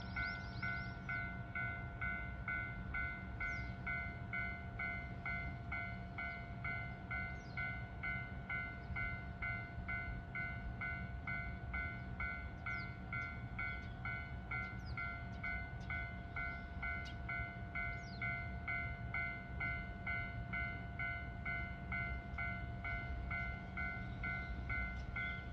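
Japanese railway level-crossing warning bell ringing steadily, a two-tone ding repeating a little over twice a second, over a continuous low rumble.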